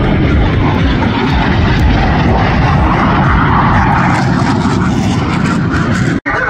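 Loud jet noise from a Blue Angels F/A-18 Super Hornet's twin engines as it makes a low pass, swelling as it goes by about three to four seconds in. The sound cuts off abruptly near the end.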